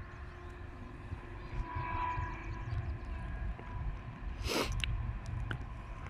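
Faint, distant horn of an approaching freight locomotive, held as a steady chord that is strongest about two seconds in, over an uneven low rumble. A brief whoosh comes about four and a half seconds in.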